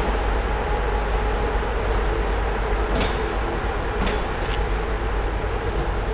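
CFR passenger coaches rolling slowly past with a steady rumble and hiss, and a few sharp clicks of the wheels about three and four seconds in.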